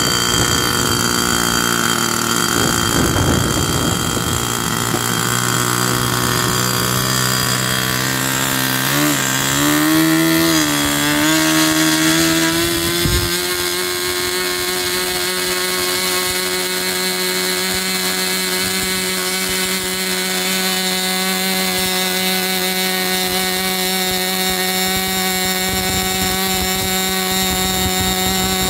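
Irvine 40 Mk III two-stroke glow engine running with its propeller. Its pitch wavers and climbs between about 8 and 13 seconds in, then holds a steady higher whine.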